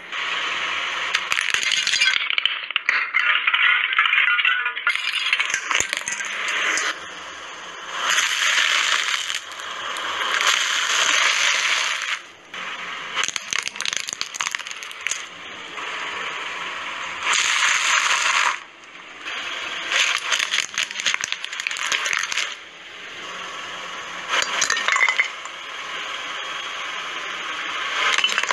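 A car tyre rolling slowly over objects and crushing them: repeated bursts of crackling and crunching, a few seconds each, with sharp cracks as brittle pieces snap and break apart.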